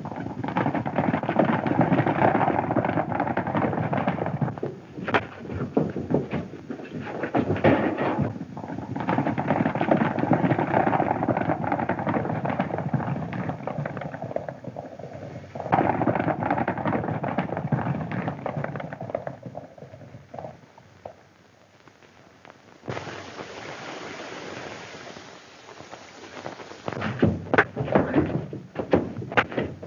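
Galloping horses' hoofbeats on an old, hissy film soundtrack, mixed with sharp cracks like gunshots. The cracks come thickest near the end.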